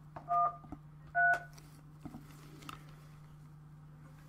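Telephone keypad being dialled: two short touch-tone beeps about a second apart, the tones for the digits 1 and 3, then a couple of faint taps, over a steady low hum.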